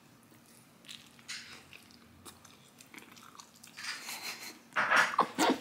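Biting into a pork taco on a soft corn tortilla and chewing with a full mouth: a run of short, wet mouth noises that get louder near the end.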